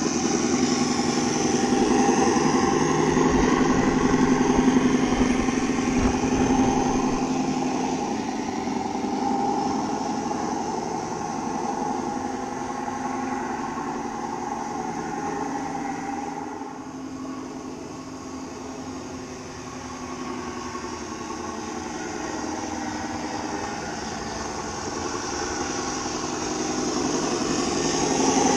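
Engine sound of a radio-controlled model Scania T-cab truck, played through its onboard sound module as it drives. It is loudest while the truck is close, fades as it drives away, and grows louder again near the end as the truck comes back close.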